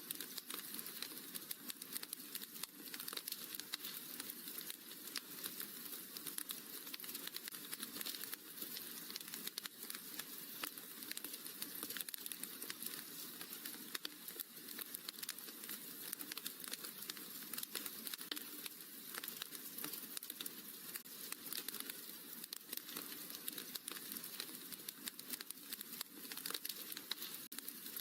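Wood fire crackling in a fireplace: a steady, dense run of small pops and snaps.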